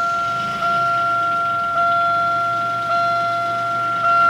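Car warning chime repeating about once a second, each two-note ding fading before the next, over the low steady idle of a 2000 Buick Century's 3.1-litre V6 (3100) just after start-up.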